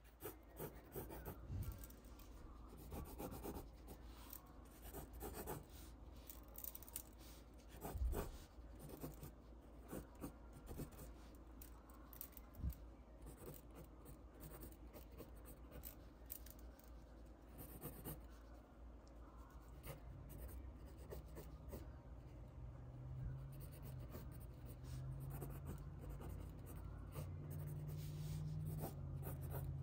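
Graphite pencil sketching on paper: faint, scratchy strokes of varying length, with a single louder knock about a quarter of the way in. A low steady hum comes in during the last third.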